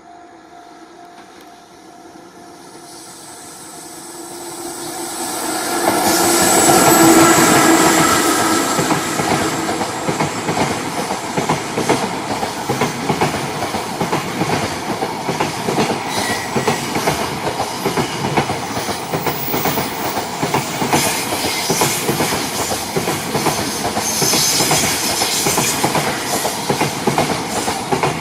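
JR Freight electric locomotive approaching and passing close by, loudest about seven seconds in. It is followed by a long string of freight wagons rolling past with a steady, rapid clickety-clack of wheels over the rail joints.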